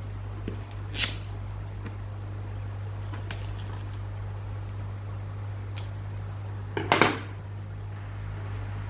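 A power supply's cardboard box and packaging being handled and opened: a few brief rustles and scrapes, the loudest about seven seconds in, over a steady low hum.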